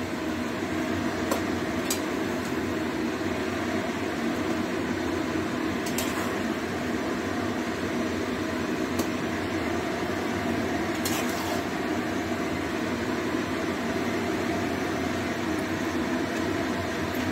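A steady mechanical hum, with a few light clicks of a metal spatula against a steel wok as thick chili chicken sauce is stirred.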